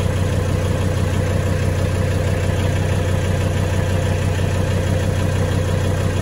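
Mercedes OM617 five-cylinder turbo diesel idling steadily, heard from underneath the car.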